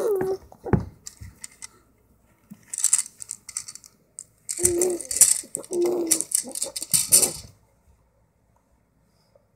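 A baby's short grunts and coos mixed with the clatter of a plastic rattle toy being grabbed and shaken, in two spells of a second or more, falling quiet about three-quarters of the way through.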